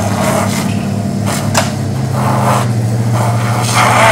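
An engine running steadily with a low hum, with short hissing noises about once a second and a sharp click about one and a half seconds in.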